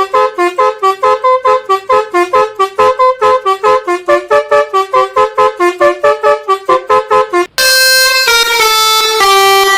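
Indonesian bus 'telolet basuri' multi-tone musical air horn playing a tune: quick staccato notes, then after a brief break, held notes stepping through a melody.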